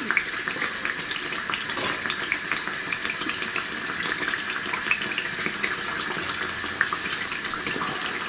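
Batter-coated potato pakoras deep-frying in vegetable oil in a wok over a medium gas flame: a steady sizzle with constant fine crackling.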